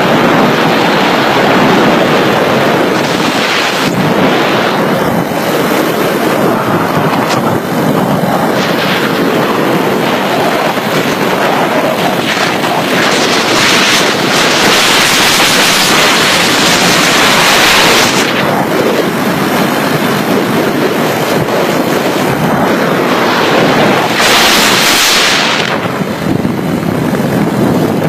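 Loud, steady wind noise rushing over a smartphone's microphone on a 50cc moped riding at speed, mixed with the moped's running. The rush grows sharper and hissier for a few seconds about halfway through and again briefly near the end.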